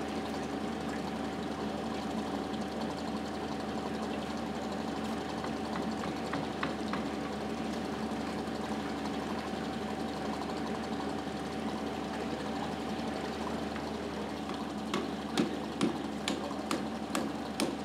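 An engine running steadily with an even hum. Several sharp knocks come in the last few seconds.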